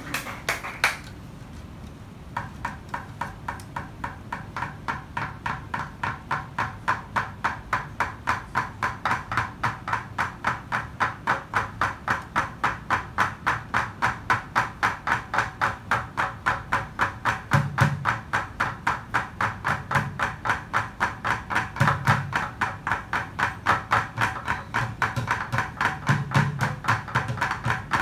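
Bucket drumming: drumsticks striking upturned plastic buckets in a steady, even rhythm of about four strikes a second, starting about two seconds in after the last of the applause dies away. In the second half some deeper, heavier hits join the pattern.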